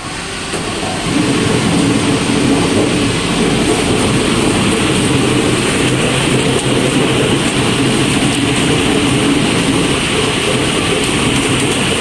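Easyfun EF-WB01 ball washing machine running with its suction blower drawing plastic pit balls up a corrugated hose. The sound is a loud, steady rushing noise that builds over about the first second and then holds even.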